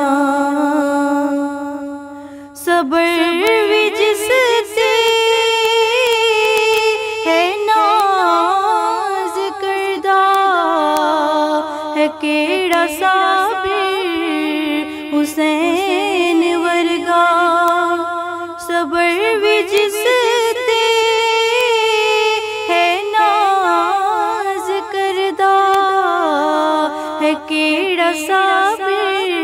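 A woman singing a Muharram kalam, a devotional lament, unaccompanied. She holds one long note, breaks off about two seconds in, then goes on in wavering, ornamented melodic lines.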